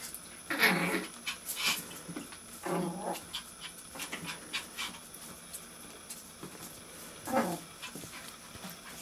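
Maltese puppy making three short growl-like vocal sounds while tugging at a hanging towel, with light clicks and rustles in between.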